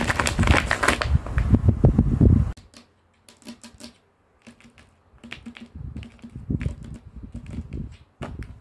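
Tape-covered paper squishies crinkling loudly as they are squeezed. After a short pause about two and a half seconds in, long acrylic nails tap and scratch on the taped surfaces in a run of quick clicks.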